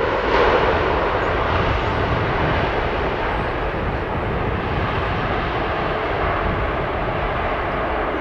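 Airbus A350-900 jet engines (Rolls-Royce Trent XWB) making a steady, dense roar as the airliner lands. The roar swells briefly about half a second in, then eases off gradually.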